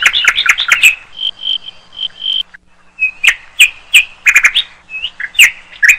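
Songbird singing: rapid sharp chirps and short whistled notes, including a run of several even, repeated notes. There is a brief pause about two and a half seconds in, then more sharp chirps.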